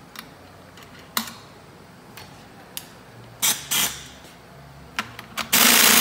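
Handheld pneumatic wrench on an air hose: two short blips about three and a half seconds in, then a run of about a second near the end, tightening the clamp-band bolt on an air-operated diaphragm pump. Before that, a few light metal clicks from handling the clamp band.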